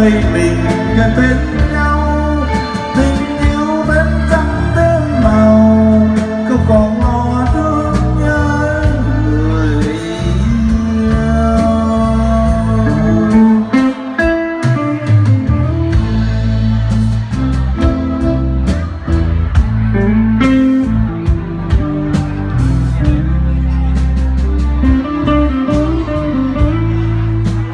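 Live band playing a slow Vietnamese song, with drums, keyboard and a guitar-like melody line, and a man singing into a microphone.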